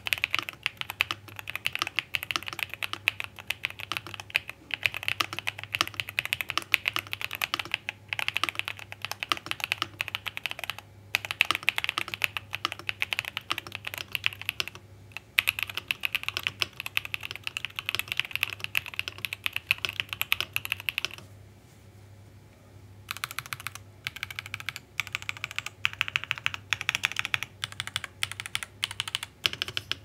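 Keys of an RKS98 prebuilt mechanical keyboard being typed on quickly and continuously, stock and unmodified. A pause of about two seconds comes a little past the middle, after which the keystrokes are slower and more separate.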